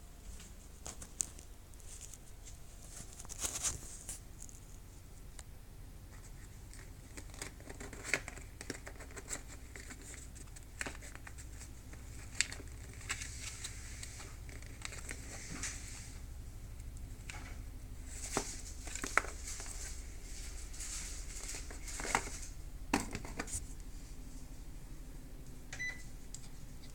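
Kitchen range-hood exhaust fan humming steadily, with scattered crinkling, taps and sharp clicks of small things being handled close by.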